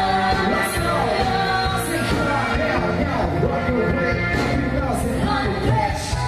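Live band playing a pop song, with a singer's voice over the band and drum and cymbal hits.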